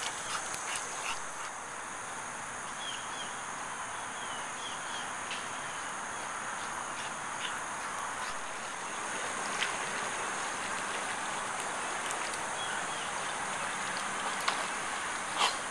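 Outdoor insect chorus: a steady high-pitched drone of insects, with short bird chirps scattered through and a few sharp knocks near the end.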